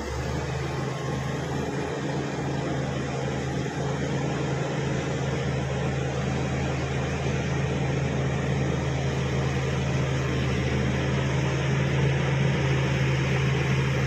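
Crawler bulldozer's diesel engine running steadily with a low, even drone, growing a little louder as the machine moves closer.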